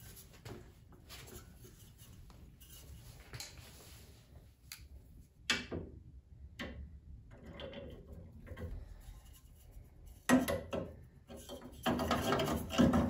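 Small metal clicks, scraping and rubbing as a headlight tension spring is hooked into the headlight bucket and trim ring of a 1977 Chevy Camaro, with a sharp knock about ten seconds in and louder rattling near the end.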